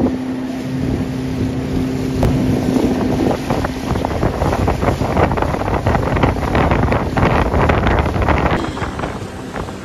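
Small boat's motor running with a steady hum that fades a few seconds in, under heavy wind buffeting the microphone and rushing, choppy water.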